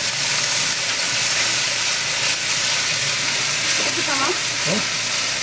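Chicken masala frying and sizzling steadily in a large iron kadai as it is stirred with a metal ladle. A voice cuts in briefly about four seconds in.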